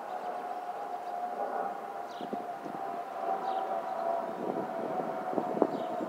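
Airbus A320-family airliner's fuel overpressure protector (FOPP) cavities whistling as it flies overhead: a steady high whistle that sags slightly in pitch near the end, over the rush of its jet engines.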